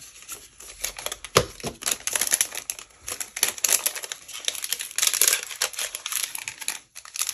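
Thin clear plastic packaging crinkling and crackling in irregular bursts as hands handle the sleeve and slide small paper cards out of it. A sharper click comes about a second and a half in.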